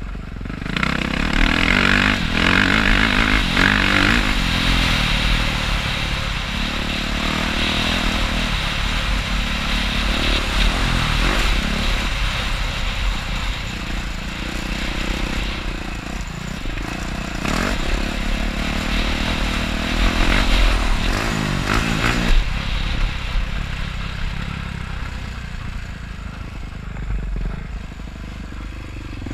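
Motocross bike engine heard from the rider's camera, revving up and down through the gears at speed, then dropping suddenly to a lower, steadier running sound about 22 seconds in.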